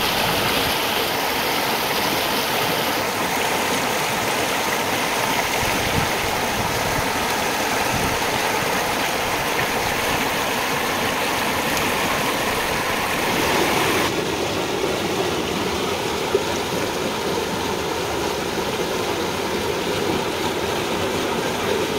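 Shallow rocky stream rushing over stones and small cascades: a loud, steady rush of water. Its tone shifts abruptly twice, about three and fourteen seconds in.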